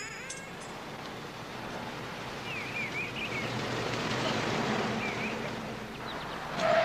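A car driving up, its engine and tyre noise swelling over a few seconds and then easing as it slows, with a few faint bird chirps.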